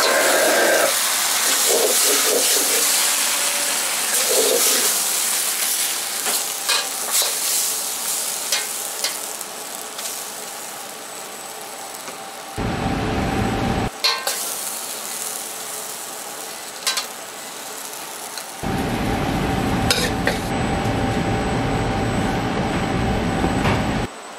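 Fried lagman noodles sizzling in a hot wok as they are stirred and tossed with a steel ladle, with sharp clinks and scrapes of the ladle against the wok. The sizzle fades over the first half, and later a steady low hum cuts in twice.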